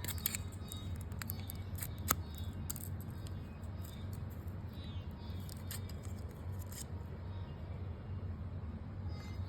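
Effervescent tablet fizzing in water: a fast crackle of tiny bubbles popping, with a sharper click about two seconds in, thinning out after about seven seconds, over a low steady hum.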